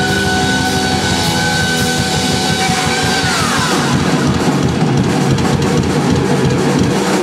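Live glam-metal rock band playing: pounding drum kit and distorted electric guitar, with a long held high note that slides down about three and a half seconds in.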